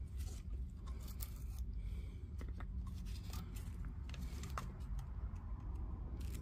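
Faint scattered clicks and light scrapes of small-tool handling as flux is put on the solder connections of a DeWalt 18V battery's circuit board, over a low steady hum.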